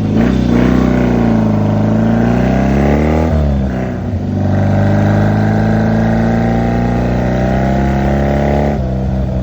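Motorcycle engine accelerating under load on a test ride: the revs climb, fall sharply at a gear change a little over three seconds in, climb steadily again, then fall once more near the end.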